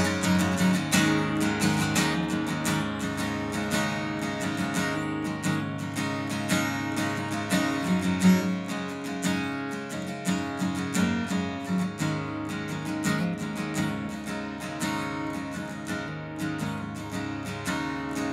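Acoustic guitar strummed in a steady rhythm, chords ringing with no singing over them.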